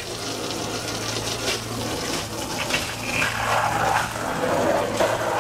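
Water from a garden hose spraying and splashing against the metal door of an electric smoker, rinsing off degreaser and the grease it has loosened.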